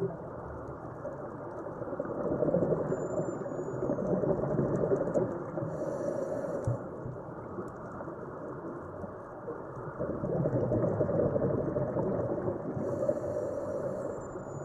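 Underwater rushing noise of a scuba diver's breathing: exhaled bubbles swell up twice for a few seconds each, and each swell is followed by a brief high hiss of the regulator on the in-breath.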